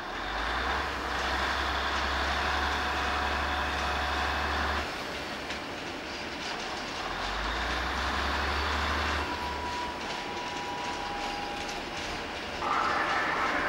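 FS Tigre-family electric locomotive hauling passenger coaches slowly over the station tracks: steady rumble and clatter of wheels on rail and pointwork. A low hum from the locomotive stops about five seconds in, comes back for a couple of seconds and fades, while a thin wheel squeal rises from about the middle and the clatter grows louder near the end.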